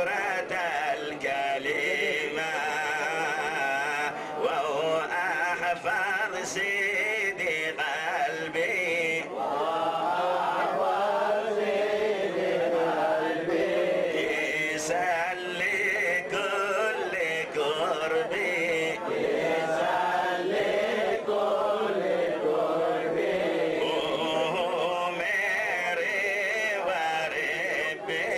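Men's voices chanting a Jewish liturgical hymn together, one man leading on a microphone, in a continuous wavering melody with the voices overlapping.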